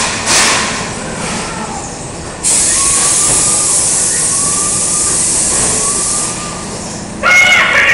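Haunted-house dark ride's scare effects over the steady rumble of the ride car: a sudden loud hiss begins about two and a half seconds in and lasts about four seconds, and a loud voice-like shriek breaks out near the end.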